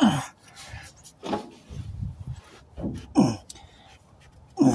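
A man grunting with effort, five short groans that each drop in pitch, as he strains to work on a truck's in-tank fuel pump by hand through an access hole; a few light clicks come in between.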